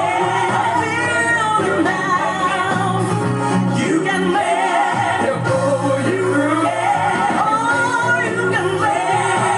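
Gospel song: a woman singing with bending, sliding runs over a steady band accompaniment.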